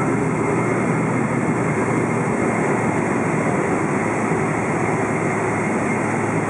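Steady cabin roar of a Boeing 777-200 on the ground, its GE90 engines running evenly with rolling noise, heard from a window seat beside the engine. The sound holds level with no change in pitch.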